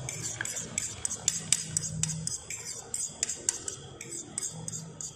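A spoon scraping and clinking against the inside of a mixing bowl, scraping beaten egg out into a pan, in quick irregular clicks and scrapes.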